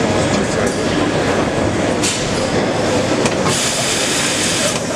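BOY 35 E injection moulding machine opening its mould over a steady, loud din. There is a click about two seconds in and a hiss from about three and a half seconds until near the end.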